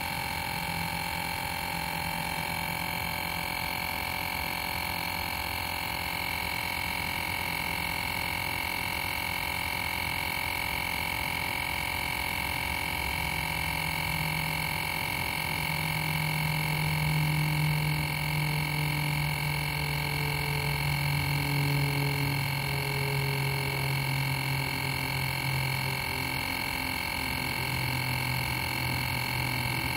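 Portable electric tire inflator's compressor running steadily while pumping up a car tire: a constant whine with a low hum under it that grows stronger about halfway through.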